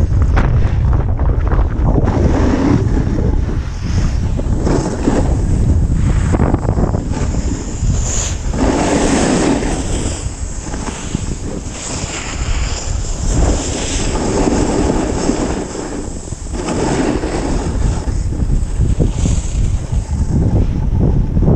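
Wind rushing over a GoPro's microphone while snowboarding downhill, with the board scraping across the snow in swelling rushes every few seconds as it turns.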